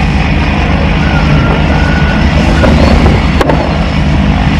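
Cars drifting a short way off: engines running and a tyre squeal held for about a second, under a heavy low rumble, with one sharp click after about three seconds.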